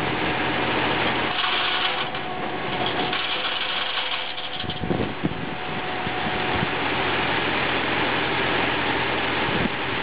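Tractor-driven circular rack saw running steadily as it rips a board off a spruce slab, the tractor engine and the blade making a continuous loud noise with a faint steady whine.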